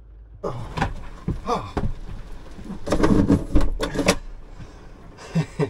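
A run of knocks, bumps and clatters as things are handled inside a van's living area, busiest about three to four seconds in, with another couple of knocks near the end.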